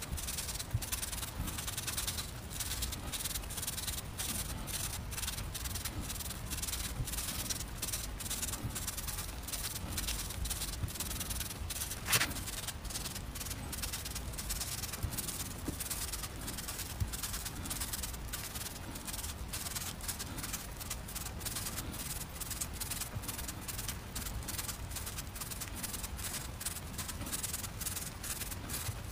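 Chinese cleaver cutting through crisp watermelon radish on a wooden board in rapid, evenly paced strokes, several a second, each a short crunchy scrape. One louder crack about twelve seconds in.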